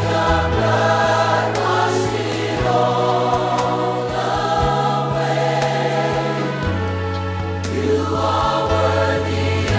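Gospel choir singing in harmony over instrumental backing, with a sustained bass line that moves to a new note every second or two.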